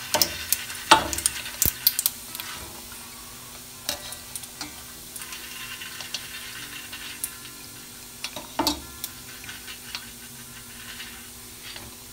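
Hot oil sizzling and crackling in a steel pot as deep-fried macaroni is scooped out with a wire spider skimmer, with a few sharp taps of the metal skimmer. The crackle is densest in the first couple of seconds and settles to a faint sizzle as the pot empties.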